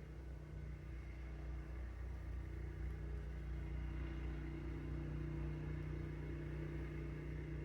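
Steady low machine hum, a little louder from about two and a half seconds in.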